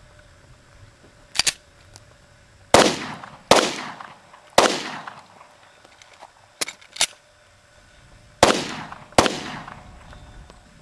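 Five pistol shots from a .40 S&W Glock 23: three fairly quickly, then after a pause two more, each with a short echoing tail. Fainter sharp clicks sound between them.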